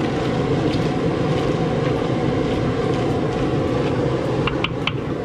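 High-pressure propane burner under a crawfish-boil pot running with a steady roar. Near the end, a few sharp knocks of the wooden paddle against the aluminum strainer basket.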